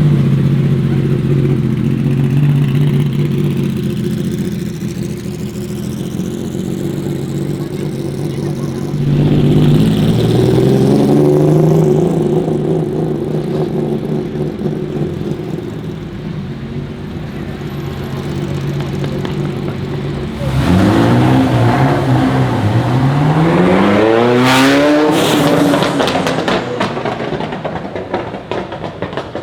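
Ferrari supercar engine running at low speed, then revving up briefly about ten seconds in. About twenty seconds in it accelerates hard, rising in pitch twice through gear changes, with exhaust crackles as it fades away near the end.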